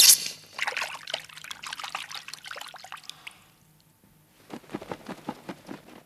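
Cartoon water sound effects: a sharp splash at the start, then splashing and trickling for about three seconds, a short lull, and a second run of splashing steps through water near the end.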